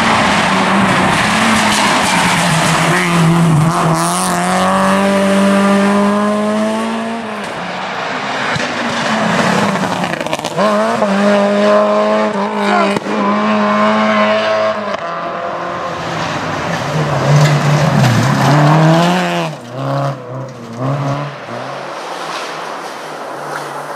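Renault Clio RS rally car's four-cylinder engine revving hard on a stage, with the pitch climbing and dropping repeatedly as it shifts through the gears over several passes. About 20 seconds in, the engine drops to a lower, uneven note.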